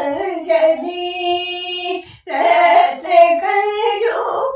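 Elderly woman singing solo in a classical style: a long held note, a short breath about halfway through, then a phrase that bends up and down in pitch.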